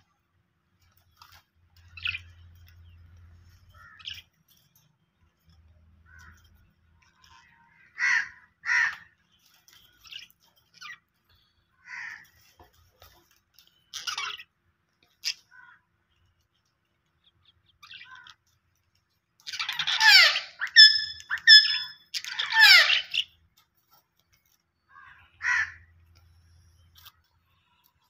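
Budgerigars calling in short scattered chirps. About two-thirds of the way through they break into a louder burst of harsh chattering calls mixed with whistled notes.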